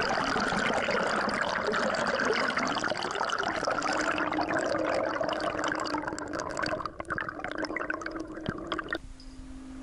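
Underwater sound of a lake heard by a submerged action camera: a muffled, churning rush of water and bubbles. It cuts off abruptly about a second before the end, where a few steady tones begin.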